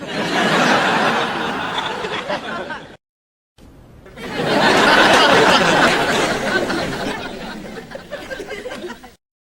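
Canned sitcom laugh track: a studio audience laughing together. A first burst of laughter stops abruptly about three seconds in. After a short silence a second one swells to a peak and then dies away.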